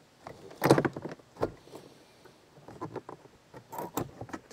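Handling noise from assembling a casket prop: a few scattered knocks and clicks as connecting pipes are lined up and locking pins pushed in. The loudest knock comes a little under a second in.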